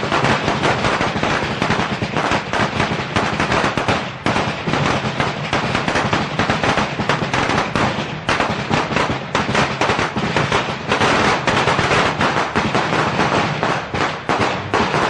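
A string of Chinese firecrackers (biānpào) going off in a dense, rapid, unbroken crackle of bangs.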